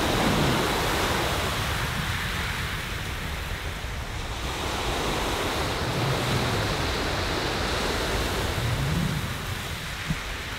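Sea surf washing onto the shore, a continuous rush that swells and eases, with wind rumbling on the microphone.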